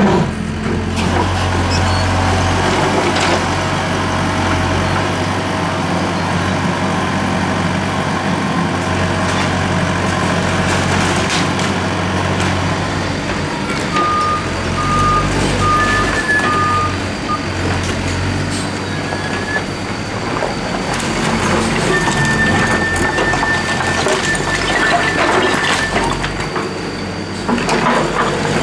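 Loaded dump truck's diesel engine running steadily, with a run of four short electronic beeps about halfway through and one longer high beep later on.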